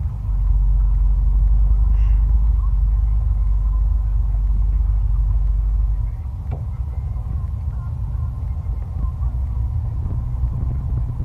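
Lorry engine and cab rumbling low and steady while driving along a gravel track, heard from inside the cab. The rumble eases a little about halfway through, and there are a couple of light knocks.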